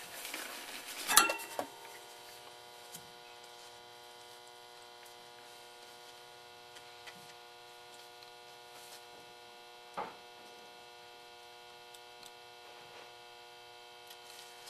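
Steady electrical mains hum, a stack of even tones, at a low level. Handling noise with a sharp click about a second in, and a few faint clicks later, one clearer about ten seconds in.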